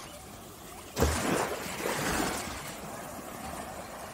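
A small wave washing up onto the sand about a second in, followed by a fading hiss of water.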